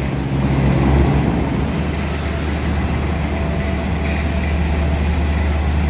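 Diesel railcar's engine running with a steady low drone as the railcar creeps in alongside the platform.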